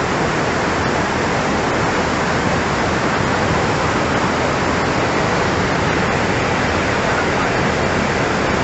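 Floodwater rushing past in a flash flood, a loud, steady, even rush of water.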